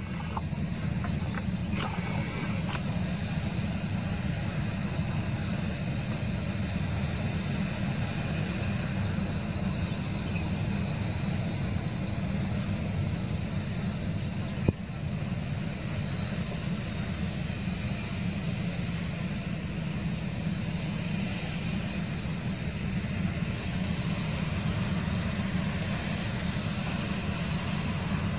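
Boeing 737 twin jet engines running at low taxi power: a steady low rumble with a thin high whine. There is one sharp click about halfway through.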